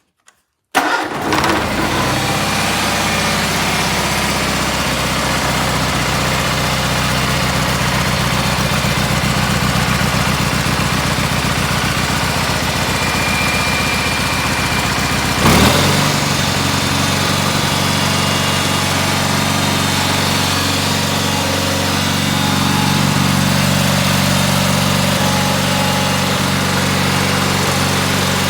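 Cub Cadet 1872 garden tractor engine starting about a second in and settling into a steady run. It is running on a newly fitted carburetor and fresh spark plugs after sitting unused a long time. About halfway through there is a brief louder burst, after which the engine note shifts slightly.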